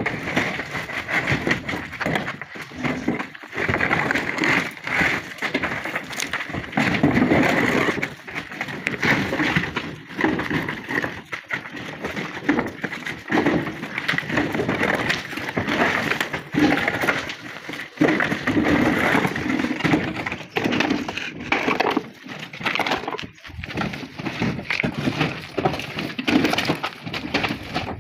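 Thin flat natural stone slabs clattering and knocking against one another as they are lifted off a stacked load on a truck bed, a dense, irregular run of sharp stone-on-stone knocks.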